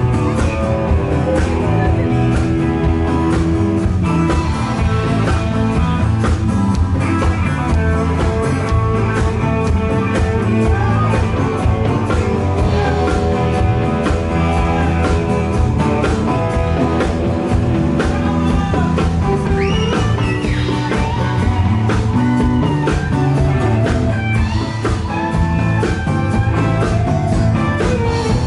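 Live blues-rock band playing: electric guitars over bass guitar and a drum kit keeping a steady beat, with bent guitar notes about two-thirds of the way in.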